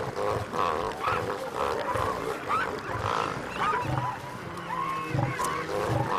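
Bull elephant seals roaring: a deep, pulsed threat call repeating about twice a second, with higher gliding squeals from other seals or birds in the rookery over it.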